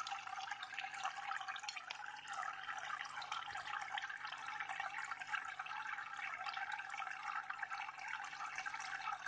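Faint, steady trickling and bubbling of aquarium water, dotted with many small drip-like ticks.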